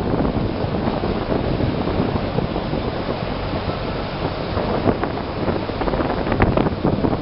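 Wind buffeting the microphone: a dense, steady noise heaviest in the low end, with short crackling gusts now and then.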